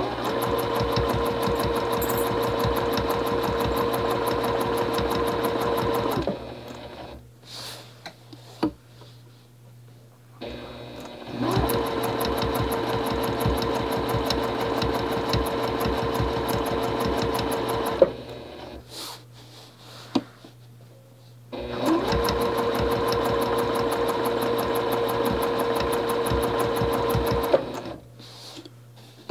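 Juki 2010 domestic sewing machine stitching steadily at speed, with a fast needle rhythm, in three runs of about six seconds each separated by short pauses of a few seconds.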